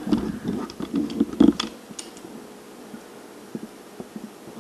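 Handling noise from the camera being moved about: irregular clicks, scratches and rubbing in the first two seconds or so, then only a few faint ticks.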